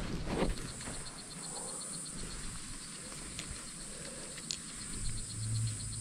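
Rainforest canopy ambience: a steady, high insect buzz with a fast, even train of chirps over it.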